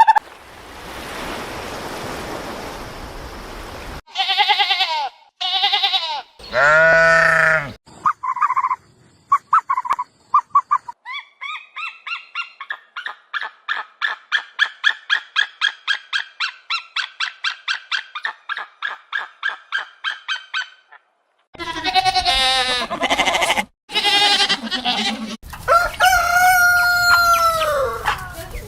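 A run of farm-animal calls. Chickens cluck and call in quick repeated short notes, about four a second, for several seconds. Separate pitched animal calls come before and after, and a rooster crows near the end, its held note falling away at the close.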